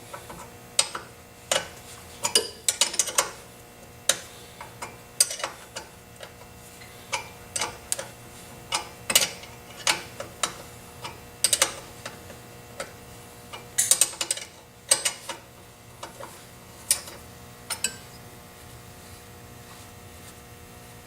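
A 14 mm wrench loosening a rear brake caliper bolt: irregular sharp metallic clicks and clinks, some in quick clusters, that stop about 18 seconds in.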